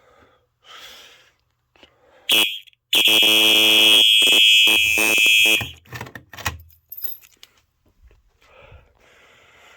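Simplex 4903 fire alarm horn giving a short blip, then one loud, steady, buzzy blast of about two and a half seconds that cuts off suddenly. Scattered clicks and knocks follow it.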